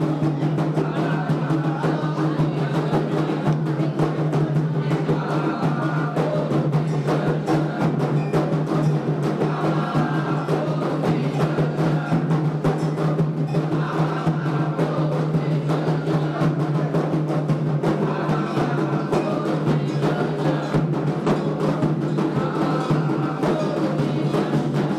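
Candomblé atabaque hand drums playing a steady, fast ritual rhythm.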